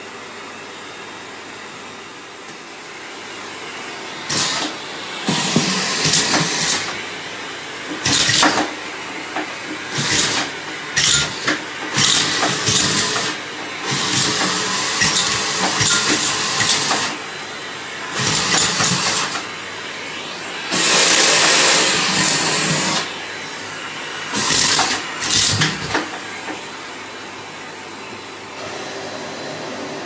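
Miele C3 canister vacuum cleaner running steadily, broken by many loud, rattling rushes of a second or two as its floor nozzle sucks Lego bricks up off the tiles and into the wand.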